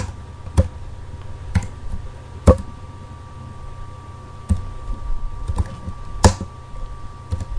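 Computer keyboard keystrokes and mouse clicks: about eight separate sharp clicks, roughly a second apart, over a low steady hum.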